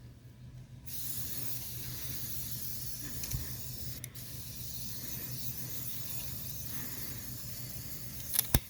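Can of compressed-air electronics duster spraying in one long steady hiss, starting about a second in and stopping near the end, followed by a couple of sharp clicks.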